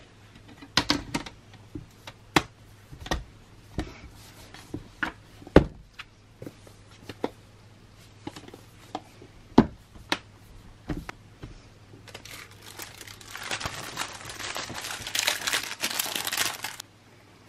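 A plastic hard-shell laptop case being fitted and snapped onto a MacBook Air: a string of separate sharp clicks and knocks. Then a clear plastic wrapper is crinkled for about four seconds and stops suddenly near the end.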